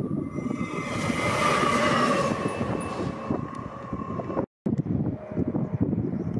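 Diesel locomotive running past close by on the rails: a low engine rumble with a steady whine that swells louder and brighter about a second in. The sound cuts out for a moment about four and a half seconds in, and a lower diesel rumble follows.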